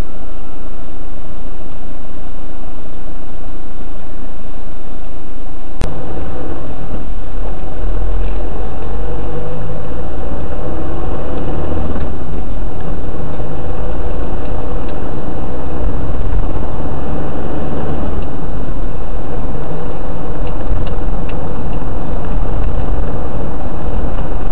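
Car engine and road noise heard from inside the cabin. It is quieter at first, then a sharp click comes about six seconds in, after which the low engine and tyre rumble grows much louder as the car drives on.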